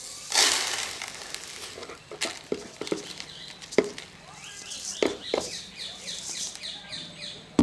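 Dry sifted river sand pouring out of a steel bowl into a plastic tub, a hiss about half a second in, followed by several sharp knocks on the bowl as the last sand is tapped out. Small birds chirp over the second half.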